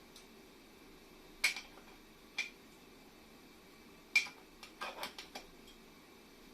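Sharp metallic clicks and clinks from metal parts being handled: two single clicks a second apart, then a louder one followed by a quick run of lighter clicks.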